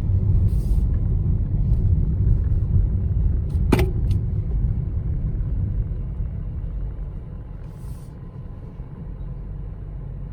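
Car road and engine rumble heard from inside the cabin while driving on a paved road, fading somewhat after about six seconds as the car slows. A brief sharp click about four seconds in.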